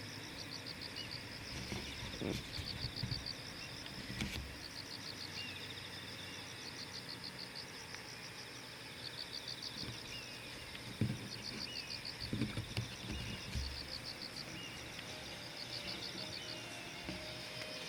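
Insects chirping in repeated pulsed trills, with a few short, falling bird calls and some scattered low thumps.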